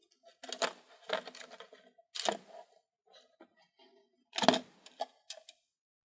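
Small camera parts clicking and knocking as the internal assembly of a Sony DSC-HX20V camera is slid out of its plastic casing: a handful of sharp clicks, the loudest about four and a half seconds in.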